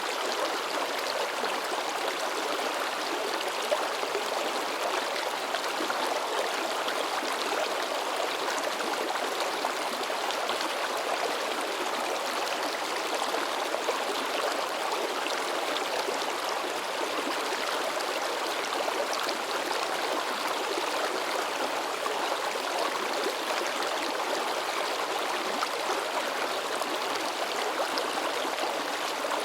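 River water babbling and splashing in a steady, even rush, with no let-up.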